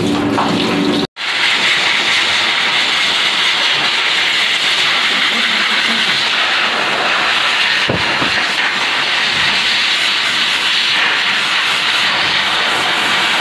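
A pet grooming blow dryer blows a steady, loud hiss of air through the wet coat of a freshly bathed Persian cat. Before it, about a second of shower spray runs, and a sudden cut separates the two.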